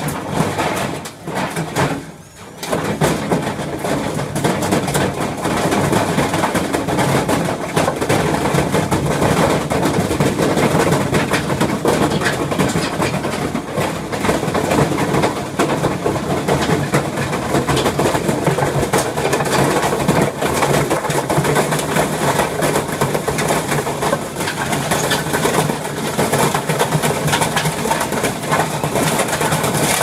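Stripped-down front-loading washing machine running a violently unbalanced spin, its drum and loose cabinet parts clattering and banging nonstop as the machine lurches and bounces on a trampoline. There is a brief lull about two seconds in, then the clattering carries on unbroken.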